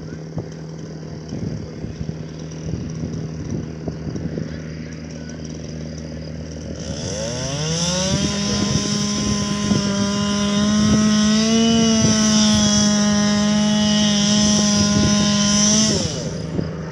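A two-stroke chainsaw revs up about seven seconds in and runs at full throttle, steady in pitch, for about eight seconds, then is released and its pitch drops away. Before that, a steady engine idle with irregular ticks.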